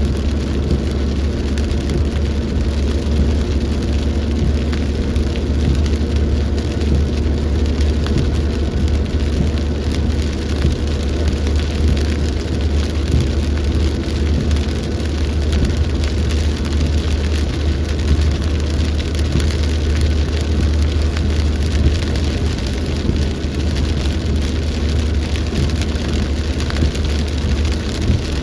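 Heavy rain pouring steadily in a storm, with a deep continuous rumble underneath.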